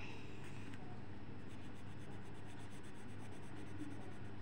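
Colour pencil scratching on paper as a drawing is shaded in, over a steady low hum.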